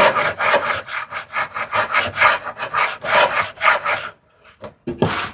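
Router plane taking quick, repeated shaving strokes across a wooden tenon cheek, about four a second, to thin a tenon that is still too tight for its mortise. The strokes stop about four seconds in, with one more near the end.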